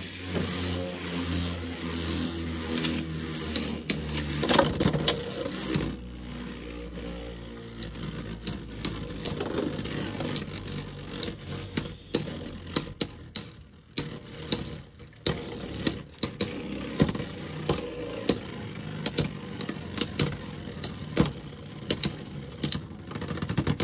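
Two Beyblade X spinning tops whirring in a plastic Beyblade stadium during a stamina battle. Their hum fades after about ten seconds as they slow, and sharp clicks and knocks come all through as the tops strike each other and the stadium floor.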